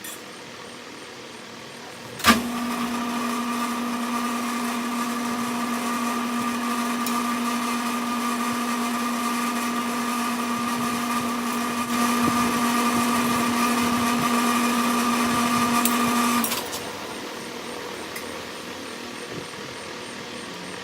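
Sidney lathe switched on with a click about two seconds in, then running with a steady motor hum as it turns the rod winding the wire coil. The hum gets louder about twelve seconds in and stops abruptly some four seconds before the end, leaving a quieter steady background hum.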